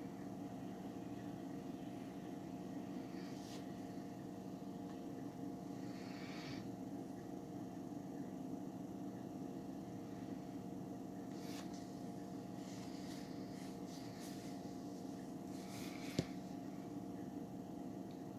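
Steady low hum made of several tones, with a few faint soft strokes of a paintbrush dabbing paint onto fabric stretched in an embroidery hoop, and one sharp click near the end.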